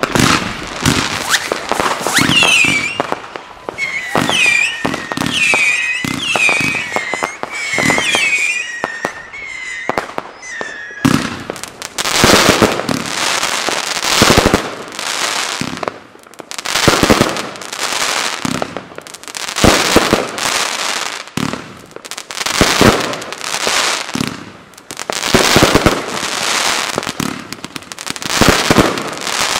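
Chained consumer firework cakes firing fan-shaped volleys. For the first ten seconds or so each shot rises with a short whistle over rapid launch pops. From about eleven seconds in come dense waves of crackling bursts and launch thumps, swelling and fading every couple of seconds.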